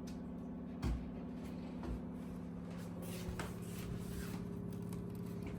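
Snow shovel working through deep snow: scrapes and a few short knocks, the sharpest about a second in, over a steady low hum.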